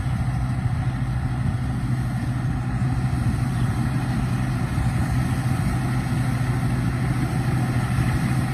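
Rice combine harvester running steadily, a constant low engine drone with mechanical clatter and noise over it.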